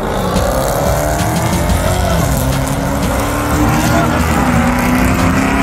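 Two drag-racing cars accelerating hard down the strip, their engines revving up through the gears with a shift about two seconds in, then climbing again.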